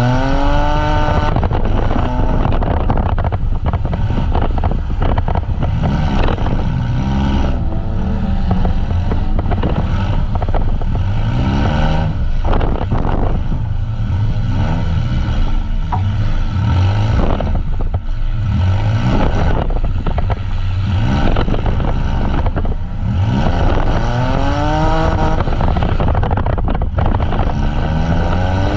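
Van engines revving up and down at a demolition derby, mixed with repeated crashes and metal scraping as the vans hit each other.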